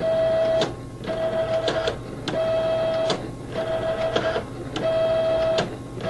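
Datacard CD800 ID card printer running its cleaning-card cycle. The card-feed motor runs with a steady whine in repeated stretches of under a second, with clicks in the short gaps between them, as the cleaning card is driven through the printer.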